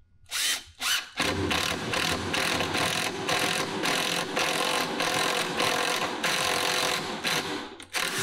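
Makita cordless drill boring a spade bit into a pine 2x4 platform frame, cutting a countersink wide enough to sink a bolt head and washer below the surface. Two short bursts on the trigger come first, then about seven seconds of steady drilling that stops near the end.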